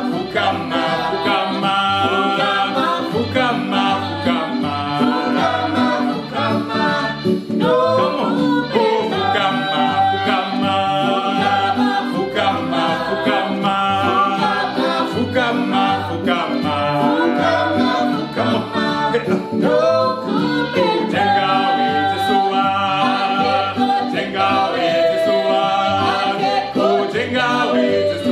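A small gospel vocal group singing call-and-response praise songs, a lead voice answered by the others in harmony, over keyboard accompaniment with a steady beat, running on from one song into the next.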